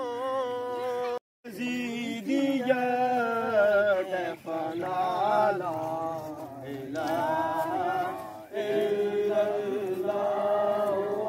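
A solo voice chanting a devotional naat in long held, sliding notes without instruments. It breaks off for a moment about a second in, then carries on.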